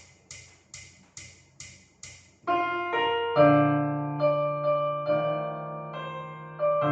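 Background piano music: a run of soft, even ticks about two a second, then piano chords come in about two and a half seconds in and are struck again every half second to a second.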